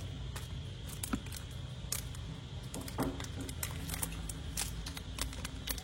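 Irregular small clicks and taps of Zippo lighters being handled, over a steady low hum.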